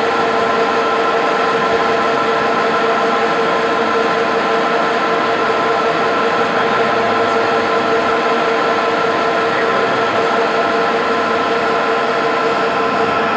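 Lathe running steadily: an even machine hum with a few steady whining tones over a hiss, typical of the motor and gearing turning the spindle while drilling.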